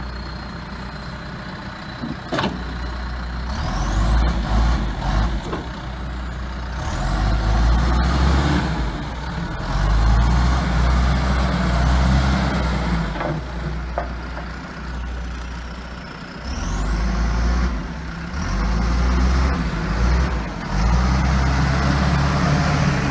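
John Deere 310SJ backhoe's diesel engine running, its revs and load rising and falling as the machine works. A few sharp knocks come through over the engine.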